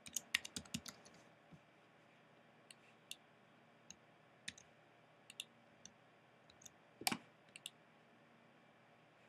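Computer keyboard typing, faint: a quick run of key taps in the first second, then scattered single taps and clicks, the loudest about seven seconds in.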